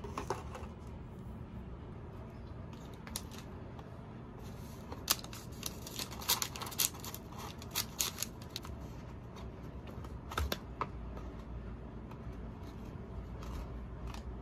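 Cardboard takeaway boxes and paper food wrappers being handled: scattered crinkles and taps, thickest in the middle and again near the end as a box is opened, over a low steady hum.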